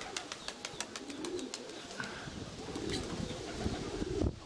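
Nikolaev pigeons cooing in low, soft phrases, most in the second half. A quick run of sharp clicks or flutter comes in the first second and a half.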